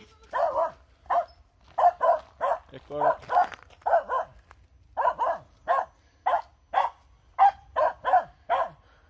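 Finnish Spitz barking over and over in short barks, about two a second, at a squirrel in the trees. This is the breed's bark-pointing at game it has found.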